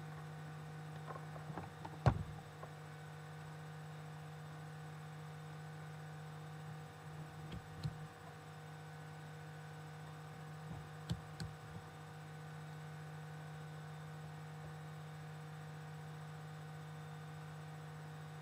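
Steady electrical mains hum, with a few light knocks and clicks from small objects being handled: the sharpest about two seconds in, more around eight seconds and eleven seconds in.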